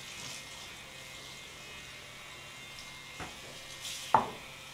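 Faint steady buzz of an electric hair clipper, with two short clicks, the louder one near the end.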